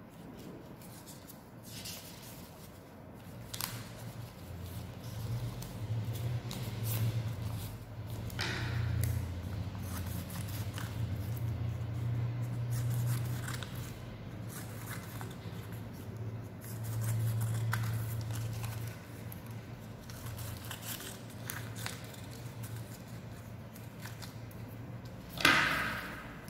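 Craft paper being cut with scissors and handled: scattered snips and paper rustles, with one louder rustle near the end. A low hum runs through the middle.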